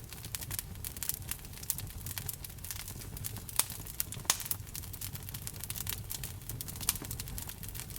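Wood fire in a fireplace crackling: frequent sharp pops and snaps over a low steady rumble of burning logs, with a few louder pops around four and a half seconds in.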